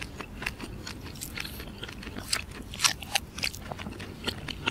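Close-up chewing and mouth noises of a person eating baked mussels: a string of irregular small clicks.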